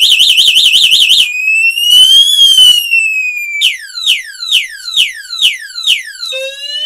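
Electric scooter's anti-theft alarm siren sounding loudly and cycling through its tones: a fast warble, then a slow rising and falling wail, then falling chirps about two a second, and rising sweeps near the end.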